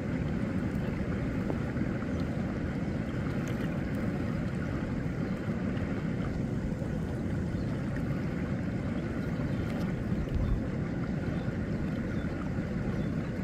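Ocean surf breaking and washing on a rocky beach: a steady, low rumble of waves, with wind buffeting the microphone.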